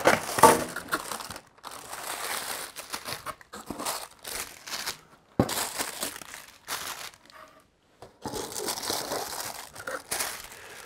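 Cardboard packaging being handled: cardboard rubbing and scraping as the inner packing is pushed through a box, with paper wrapping crinkling and a sharp click about five seconds in.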